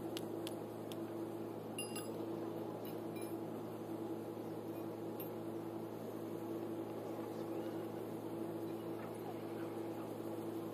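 A steady machine hum, with a low drone and a higher tone that swells and fades every second or so, and a few faint ticks near the start.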